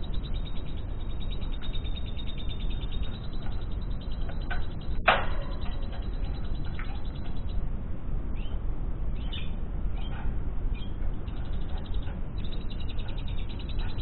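Lovebird chirping, the lovebird song used for mastering: a fast, even run of high chirps that breaks off about seven and a half seconds in, a few scattered chirps, then the run again near the end. One sharp, loud click about five seconds in, over a steady low hum.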